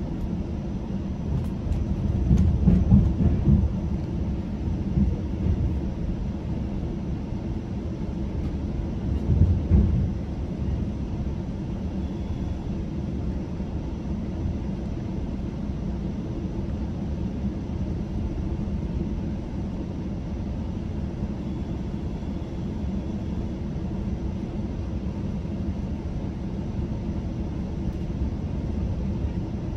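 GO Transit commuter train rolling along the track, heard from inside the coach as a steady low rumble. It swells louder twice, about two to four seconds in and again around ten seconds in.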